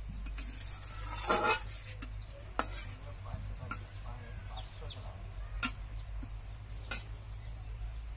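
Metal spatula stirring fish curry in a metal wok, with a longer scrape about a second in and then four sharp clinks of the spatula against the pan.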